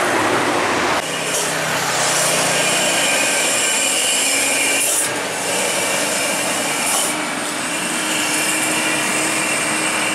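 Road traffic on a hill climb: a loaded heavy truck climbing and cars passing, a steady rasping hiss of engine and tyre noise on a wet road. The sound changes abruptly a few times.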